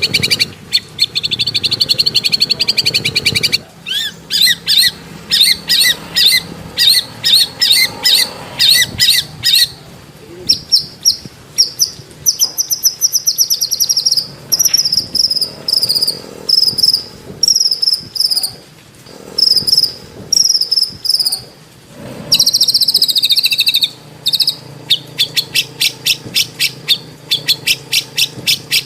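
White-rumped shama (murai batu) singing a varied song: fast buzzy trills at the start and again near the end, runs of sharp repeated notes, and clear slurred whistled phrases in the middle.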